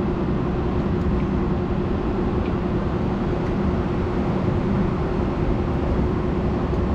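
Steady low mechanical rumble with a constant hum in it, unchanging throughout.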